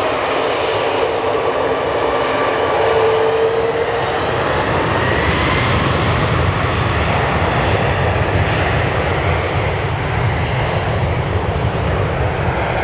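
A Boeing 737 MAX 10's CFM LEAP-1B turbofan engines running as the airliner rolls along the runway past the listener. It is a loud, steady jet noise, with thin whining tones that slide in pitch as the aircraft goes by.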